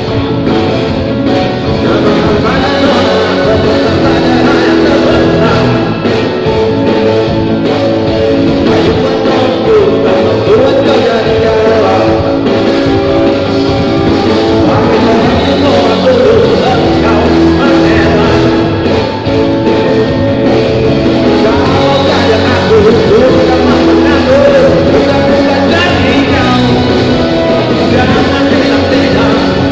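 A live pop-rock band playing through PA speakers: electric guitar, bass guitar, drums and keyboard, with a singer's voice over them.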